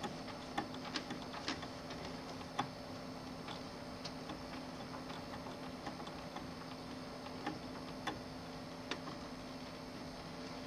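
Faint, irregular small clicks and ticks of fingers fumbling a wire connector and its plastic plug into a TV circuit board, over a steady low hum.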